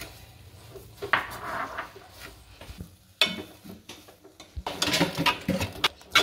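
Steel spoon scraping and clinking against an aluminium pot while stirring sugar into thick, cooked semolina (rava kesari). A sharp knock comes about three seconds in, then the scraping quickens into rapid strokes with a sharp clink at the end.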